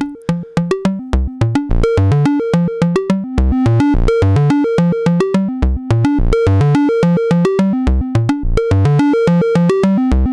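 Modular synthesizer sequence: a square wave from a Make Noise DPO oscillator struck through the bottom channel of a Make Noise LxD vactrol low pass gate (6 dB per octave, non-resonant), giving a quick melodic pattern of short plucked notes with occasional low bass notes.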